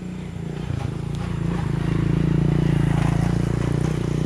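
A motor vehicle engine running steadily, growing louder over the first two seconds and easing a little near the end.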